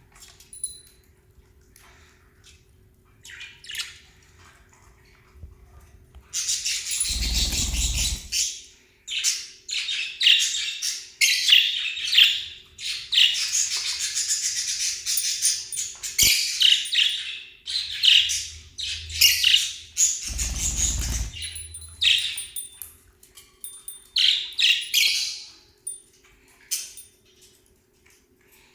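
Small pet parrots chirping and squawking. A few faint chirps at first, then about six seconds in a dense, busy chatter of many birds starts up and carries on, broken by two brief low rumbles.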